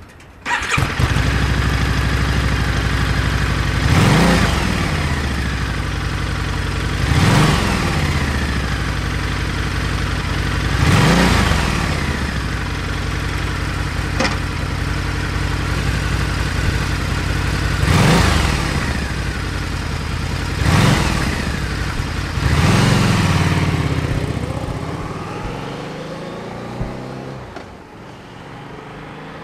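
Harley-Davidson Night Rod Special's 1250 cc V-twin running through its dual exhaust, idling steadily between six sharp throttle blips that rise and fall in pitch. Near the end the sound drops away as the bike rides off.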